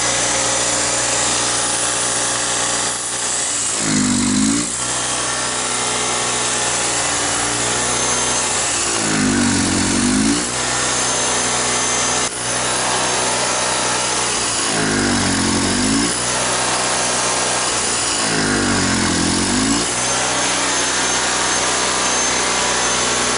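Honda ES6500 generator's two-cylinder engine running at a steady speed while Seafoam is sprayed into its carburettor to clean out carbon. Four times, about every five seconds, the engine note wavers and swells briefly, then settles back.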